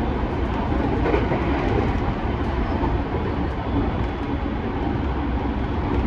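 Running noise inside a JR East E217 series electric commuter train travelling at speed: a steady rumble of wheels on the rails, heard from inside the passenger car.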